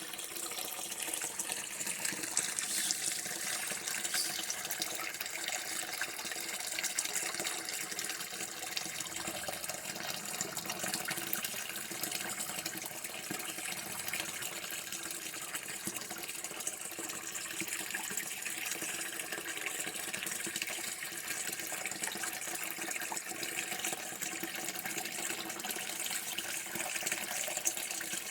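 Water running steadily from a tap, an even splashing hiss.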